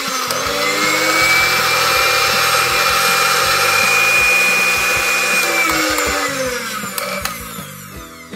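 Electric hand mixer running steadily, its twin beaters whipping eggs and powdered sugar into a batter in a glass bowl. The motor hum falls in pitch and fades from about six seconds in.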